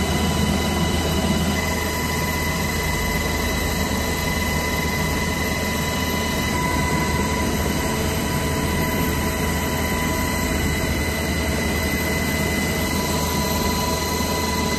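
HH-60 Black Hawk helicopter's turbine engines and rotor running, heard from inside the cabin with the side door open: a steady loud rush over a low hum, with a high-pitched whine.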